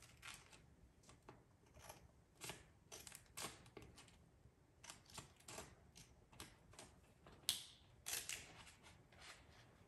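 Scissors snipping through a paper envelope: faint, irregular crisp snips, roughly two a second, with a louder one about seven and a half seconds in.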